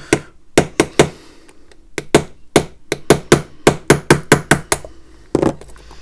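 Small hammer tapping a pin punch to drive a stubborn pin out of a three-fold watch bracelet clasp. The taps are sharp and come in short bursts, quickening to about five a second in the middle.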